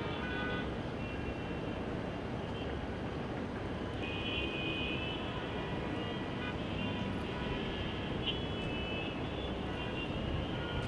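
Steady city traffic noise, a continuous rumble of vehicles with faint high tones, strongest about four to five seconds in.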